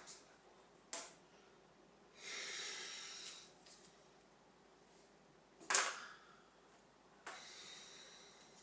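A person at a table, audible in a small quiet room: two long breathy exhales like sighs, each about a second long, and two short sharp sounds, one about a second in and one just before six seconds.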